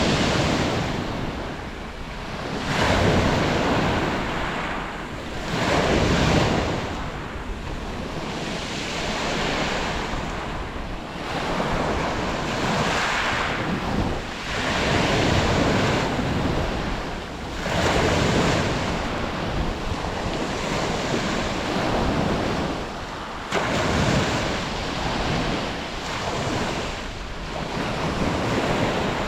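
Sea waves breaking on a beach, each wave surging in and washing back, about every three seconds.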